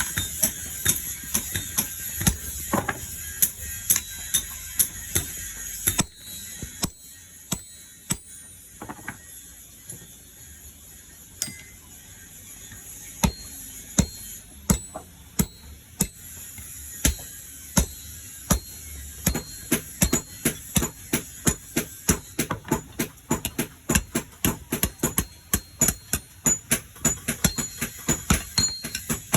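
Hammer blows on hot steel at an anvil, forging a nail by hand: sharp metallic strikes in runs, sparse for a while in the middle, then a quick steady beat of about three strikes a second near the end.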